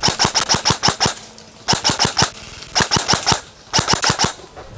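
Airsoft rifle firing on full auto in four short bursts of rapid, sharp clicks, about ten shots a second, with brief pauses between the bursts.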